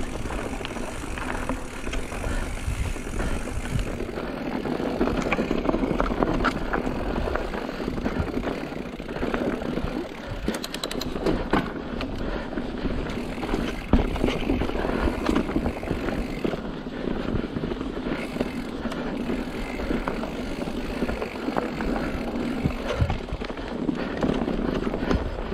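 Mountain bike riding down a dirt trail: the tyres' steady rolling noise on dirt, with frequent clicks and knocks from the bike over rough ground, the loudest a sharp knock about halfway through.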